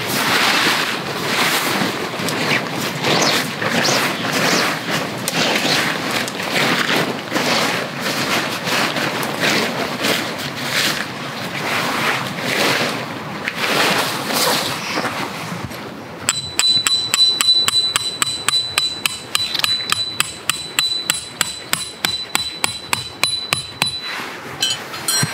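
Heavy tent fabric rustling as it is handled and stretched. About two-thirds of the way through, this gives way to rapid light hammer strikes on a metal tent peg, about four a second, with a ringing tone.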